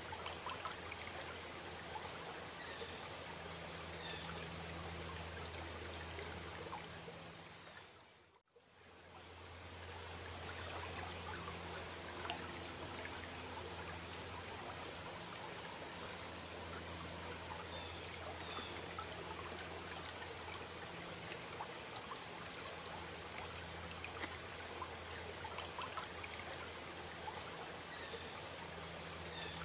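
Faint, steady rush of running water, like a stream, with a low hum beneath it; it fades out briefly about eight seconds in and then returns.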